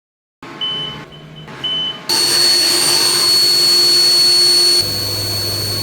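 Three short electronic beeps, then an electric machine starts and runs loudly with a steady high whine; near the end its tone changes to a lower hum.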